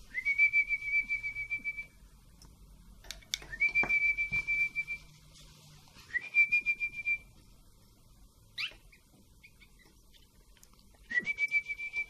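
A person whistling four held notes on one steady pitch, each opening with a quick upward slide, with a short rising chirp between the third and fourth. The whistle is the cue that makes newly hatched chicks in the nest open their mouths for hand-feeding.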